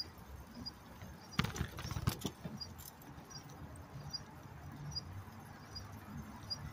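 Bicycle rolling on a street: a steady low road and wind rumble, with a burst of rattling clatter about a second and a half in. A faint high squeak repeats about every half second throughout.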